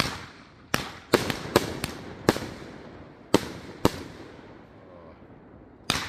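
Pyro Diablo 'Sky Predator' fireworks going off: shots launching and bursting overhead as a string of about ten sharp bangs, bunched close together in the first couple of seconds, then more spaced out, with one more near the end, each trailing off in a short echo.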